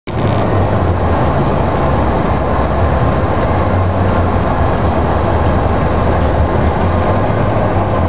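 Steady low rumble of a car's engine and tyres heard from inside the cabin while it drives on a snow-covered road.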